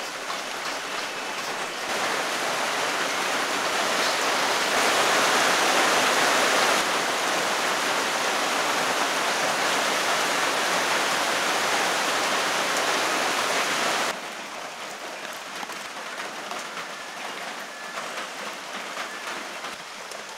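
Sweet-leaf vegetables sizzling as they fry in hot oil, a dense hiss that drops off suddenly about fourteen seconds in to a quieter hiss.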